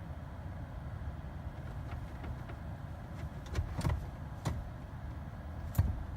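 Jeep rolling slowly backward with its engine off and the brakes easing: a steady low rumble with a few short knocks and clicks past the middle.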